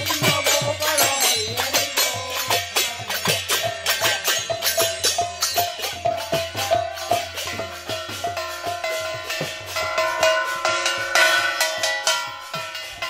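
Several small brass hand cymbals clashed together in a quick steady rhythm, each stroke ringing bright and metallic. A long held note sounds over the cymbals through the middle and later part.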